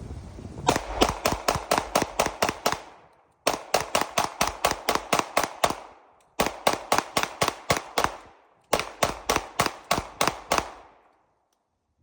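Glock 19X 9mm pistol fired in rapid strings, about five shots a second, four strings of around ten shots each, emptying the magazine.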